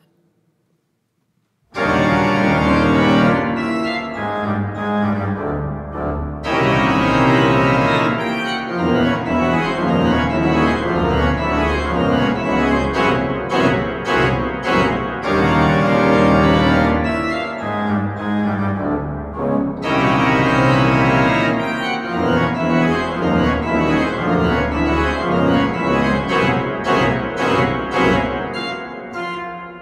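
Church organ playing an interlude of full sustained chords over a deep pedal bass, starting suddenly after a brief silence and dying away near the end.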